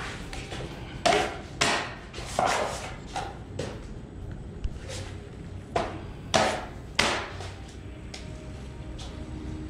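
Metal drywall knife strokes across a ceiling joint, laying on and spreading joint compound. It is a run of short, sharp strokes, each starting with a slap and trailing off in a quick scrape, about a second or less apart, thinning out near the end.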